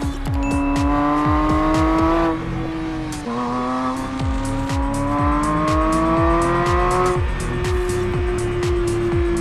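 Porsche 911 GT3's 4.0-litre naturally aspirated flat-six accelerating under load, its pitch climbing steadily, breaking off at an upshift about two to three seconds in, climbing again, then levelling off near the end. A steady bass beat of music runs underneath.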